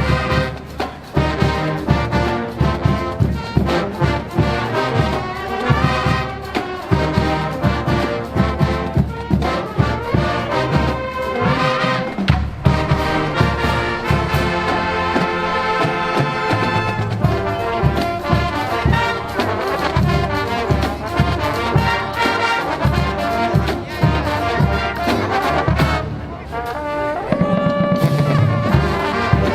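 Marching band playing: trumpets and trombones over a steady drum beat.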